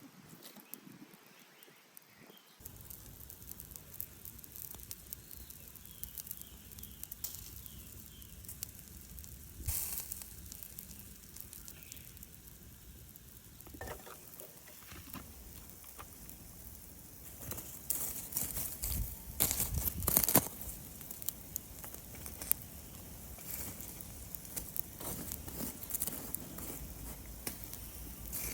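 Shishamo grilling over charcoal: fat sizzling and the coals crackling, with frequent sharp pops. The sizzle starts abruptly a couple of seconds in, and the loudest pops come about two-thirds of the way through.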